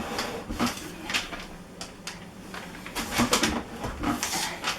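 Handling noise: a string of irregular knocks and clicks with some rubbing and scraping as things are shifted back.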